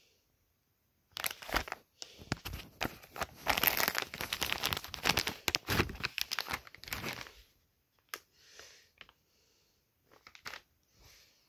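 A clear plastic underwear bag crinkling and rustling as it is opened and a pair of boxer briefs is pulled out. The sound is dense and loudest from about a second in until about seven seconds, then thins to a few scattered crackles and soft rustles.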